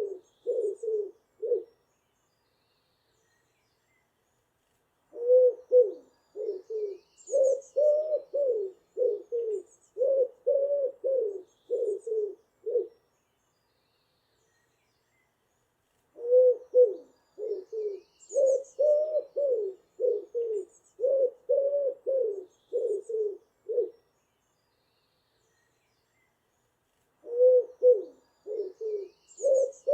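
A pigeon cooing in bouts of low, rhythmic coos lasting about eight seconds each, separated by pauses of a few seconds. Faint high chirps of other birds are heard now and then.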